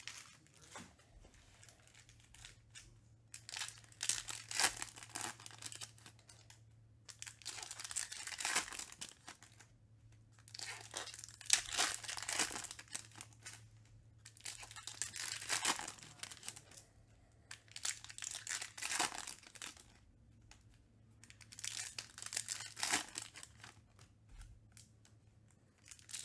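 Topps Chrome trading cards being handled and sorted by hand: bursts of cards sliding, rubbing and being laid down on one another, recurring every few seconds with quieter gaps between. A faint steady low hum runs underneath.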